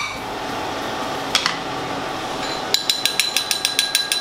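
Fork beating eggs in a ceramic bowl: a single clink at the start and two more about a second and a half in, then a quick, even run of ringing clinks, about seven a second, from a little under three seconds in.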